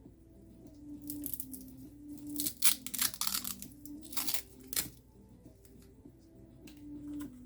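Plastic or paper packaging being torn and crumpled in a few rustling bursts, loudest about two and a half to four and a half seconds in, over faint background music.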